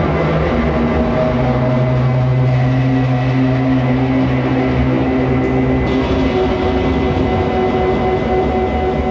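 Synthesized drone of layered sustained tones, the sound of an interactive light installation that responds to visitors touching it. A strong low tone comes in about a second in and drops out near six seconds, while higher tones hold steady.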